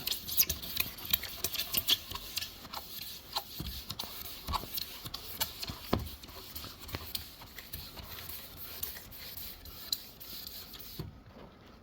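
Hand rubbing and scraping on a plastic headlight lens, with a steady hiss and many irregular small clicks. The hiss cuts off sharply near the end.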